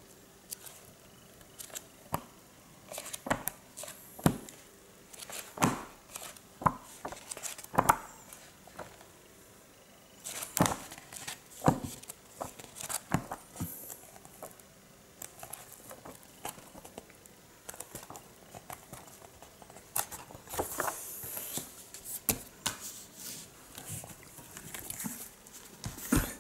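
Pages of a thick hardcover comic book being turned quickly by hand: irregular paper snaps and rustles, with a short run of rapid riffling about twenty seconds in.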